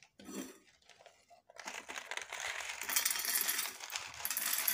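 Dry kidney beans, pasta, peanuts and chickpeas poured from a plastic tray into a metal bowl, a dense clatter of many small hard pieces. It starts about a second and a half in and carries on nearly to the end.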